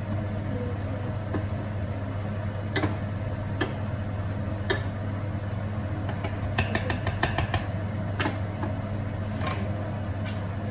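Utensils clicking and tapping against a pan or dish over a steady low hum. There are scattered single clicks, then a quick run of about eight taps a little past halfway.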